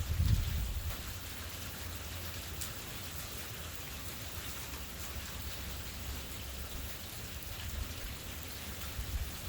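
Steady rain falling during a thunderstorm, with a low rumble in the first second.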